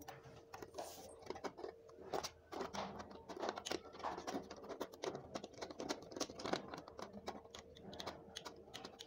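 Screwdriver working the screws of a plastic wall socket and switchboard plate: faint, irregular clicks and scrapes.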